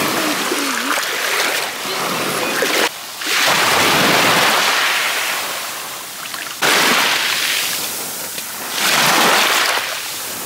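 Small waves washing up over a pebbly shingle shore: a surging hiss that swells and fades, peaking twice, with abrupt changes about three and six and a half seconds in.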